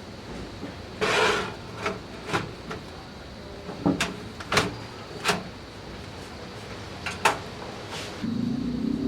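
Scattered clicks and light knocks of computer parts being handled, with a short rustle about a second in. A steady low hum starts near the end.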